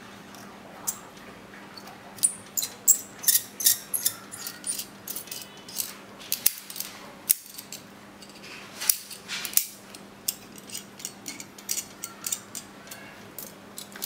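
Aluminium screwgate carabiners clinking and clicking against each other as they are handled, a rapid, irregular run of light metallic ticks and clinks.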